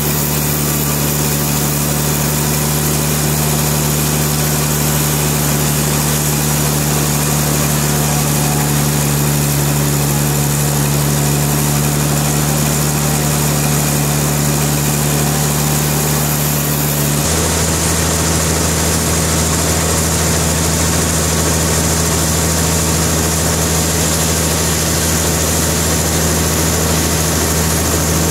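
Sawmill engine running steadily with a loud low hum. About two-thirds of the way through, its note changes abruptly to a different, deeper pattern.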